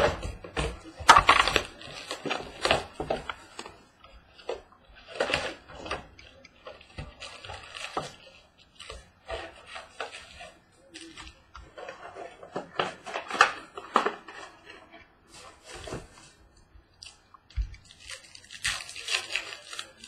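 A box of sports trading cards being opened and the cards handled: irregular rustling, crinkling and tearing of packaging and card stock, with a few sharper clicks.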